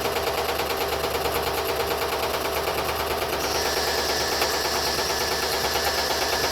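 Hydraulic rock breaker on a JCB 215 excavator hammering rock in fast, even blows over the excavator's running engine.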